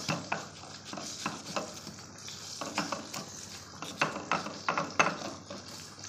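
Stone pestle crushing and grinding garlic cloves with coarse salt and ground coriander in a stone mortar (cobek): irregular knocks and gritty scraping of stone on stone, a few a second. Under it, a steady sizzle of food frying in hot oil.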